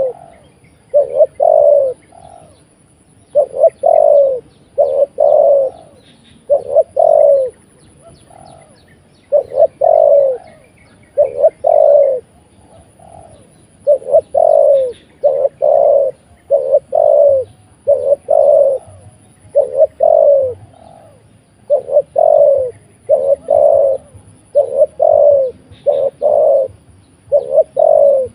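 Spotted dove cooing over and over, loud and close. Its short, low coo notes each dip in pitch and come in quick groups of two to four with brief pauses between.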